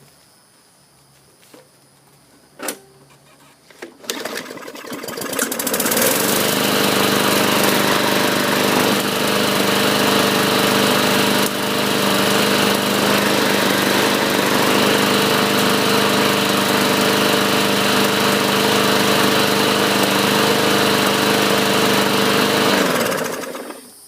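Murray 500E walk-behind lawn mower's 5 hp Briggs & Stratton engine pull-started, catching about four seconds in and running steadily before shutting off near the end. With its carburetor cleaned it now runs; a great sounding machine.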